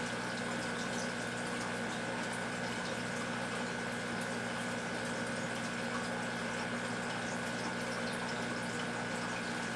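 Aquarium filter running: a steady hum with a constant trickle and bubbling of water.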